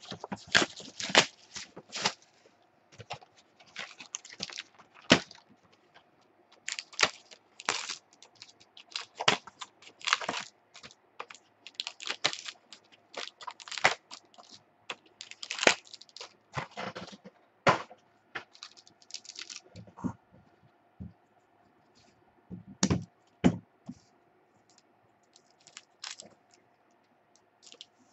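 2013 Playbook football card packs being torn open and the cards handled: wrappers tearing and crinkling, cards clicking and sliding against each other in quick runs. The handling thins out in the last third, with a couple of soft knocks.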